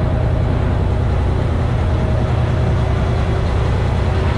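A large party boat's engines running steadily underway, a constant heavy low drone with a faint steady hum above it.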